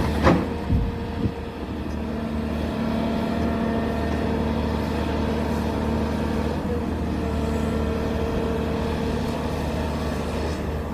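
Heavy diesel engine of an excavator or dump truck running steadily, with a few sharp knocks in the first second and a half.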